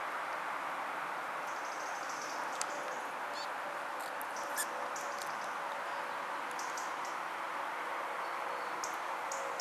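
Steady noise of distant road traffic, with high, squeaky chirps of small birds coming in short clusters every second or two.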